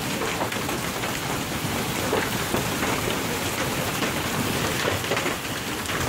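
Heavy rain pouring down in a steady, loud downpour.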